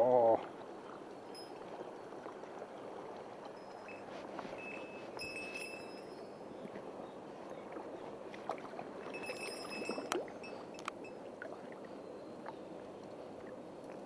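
Steady rush of a shallow mountain stream, with a few faint clicks and two short high-pitched buzzes about five and nine seconds in.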